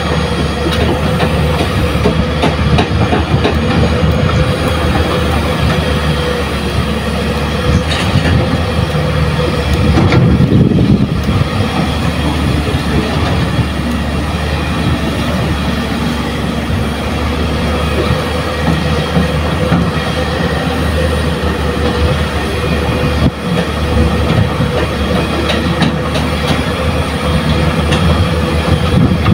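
JCB crawler excavator's diesel engine and hydraulics running steadily as it digs sand and loads a dump truck: a low engine rumble with a steady whine over it, louder for a moment about ten seconds in.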